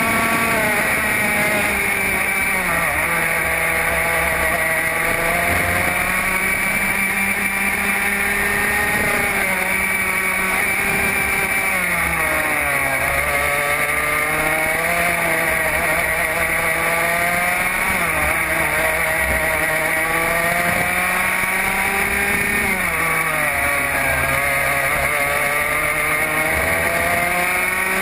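Racing kart engine heard on board at racing speed, its pitch dropping three times as the kart slows for corners and climbing back as it accelerates out onto each straight.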